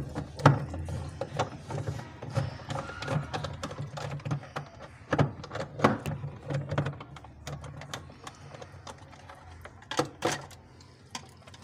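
Screwdriver working the screws out of a refrigerator's plastic thermostat and light housing: irregular clicks, scrapes and small knocks of the tool against the screws and plastic, with a couple of sharper knocks about ten seconds in as the housing loosens.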